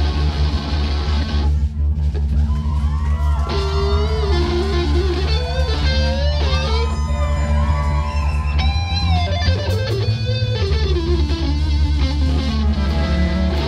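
Live band music: an electric guitar plays a lead line full of string bends over bass and drums. The cymbals drop out briefly about two seconds in, and near the end the guitar slides down in pitch.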